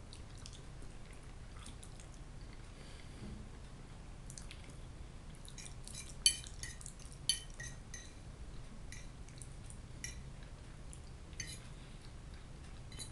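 Metal fork clinking and scraping against a ceramic plate as fried potatoes are picked up, with some chewing. Scattered light clinks, the two sharpest about a second apart near the middle.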